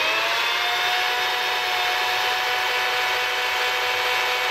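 DeWalt cordless electric chainsaw running at full speed with the chain spinning, a steady high whine held level throughout.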